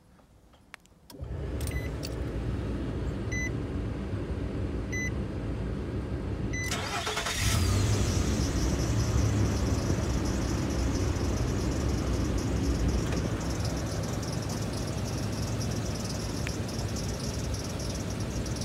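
2005 Nissan Xterra being remote-started: the ignition comes on with a steady hum and four evenly spaced beeps, then the starter cranks briefly about seven seconds in. The 4.0-litre V6 catches and settles into a steady idle.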